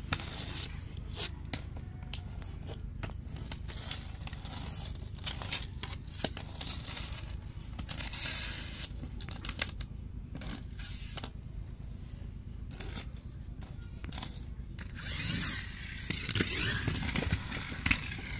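Small plastic toy monster trucks and toy planes being handled and pushed across a concrete floor: scattered plastic clicks and knocks, with scraping about eight seconds in. Near the end comes louder scraping and rattling as a toy monster truck rolls and tips over, all over a steady low hum.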